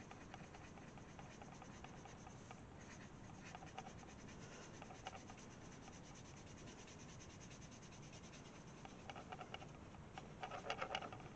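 Faint rubbing and scratching of a cotton bud (Q-tip) on paper as it blends coloured pencil into the background, in short strokes that get busier and a little louder near the end.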